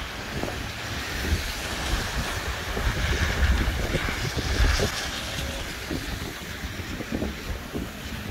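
Gusty storm wind buffeting the microphone, a heavy rumble that swells to its strongest about three to five seconds in and then eases. Cars' tyres hiss on the wet, slushy road.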